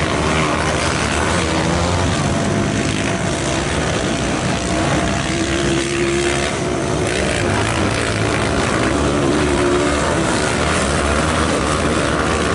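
Motocross bikes' engines running on the track, a continuous loud engine drone whose pitch rises and falls as riders open and close the throttle.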